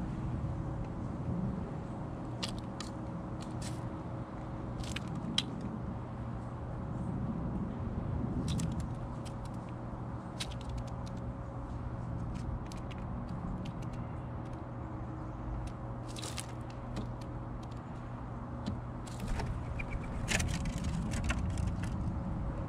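A steady low mechanical hum runs throughout. Over it come scattered sharp ticks and clicks, in small clusters, as a scrub-jay pecks and picks through seed and peanuts on a wooden platform feeder.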